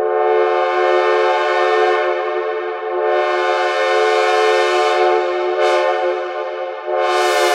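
Synthesizer imitation of a Nathan C5A locomotive air horn sounding a held multi-note chord in long blasts. Each blast starts afresh, about three seconds in and again near the end.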